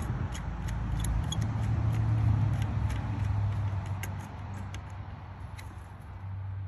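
Small screwdriver clicking and scraping as it tightens wires into the screw terminals of a PWM motor speed controller. Under it, a low steady rumble swells about two seconds in and then fades.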